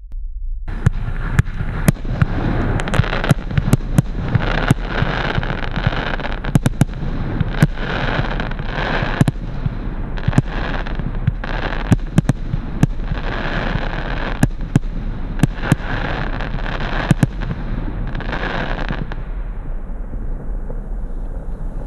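Wolff 'Massive Reload' 144-shot, 25 mm-calibre firework battery firing. A rapid, irregular run of sharp bangs sounds over a continuous hiss, starting about a second in and fading out near the end.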